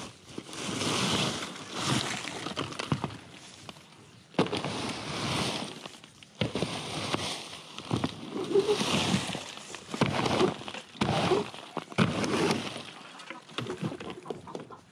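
Plastic leaf rake dragged in repeated strokes across corrugated roof panels, scraping and rustling dead leaves and conifer needles. The strokes come about nine times, unevenly spaced, each lasting about a second.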